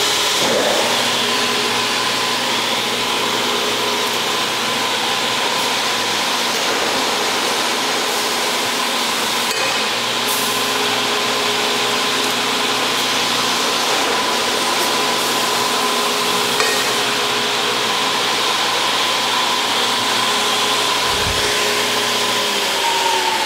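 Baldor 2 hp saw-duty electric motors of a CTD DM200R dual-head miter saw, with their blades spinning free. They come up to speed at the start and run with a steady hum and whine, then begin to wind down with a falling pitch at the very end.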